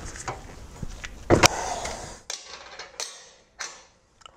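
Steel wrenches on the oil tank drain plug, with one loud, sharp metallic crack just over a second in as the 19 mm drain plug breaks loose, followed by a few light clicks of the tools.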